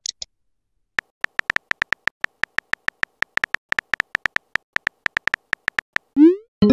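Phone keyboard key-click sound effects of a texting-story app: about thirty quick, identical high ticks over some five seconds as a message is typed, followed near the end by a short rising swoosh as the message is sent.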